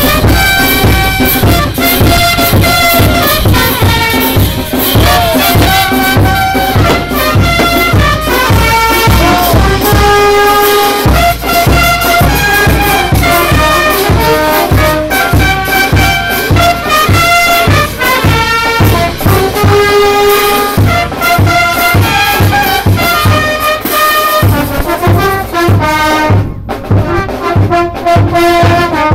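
Brass band playing a dance tune, held melodic notes over a steady beat.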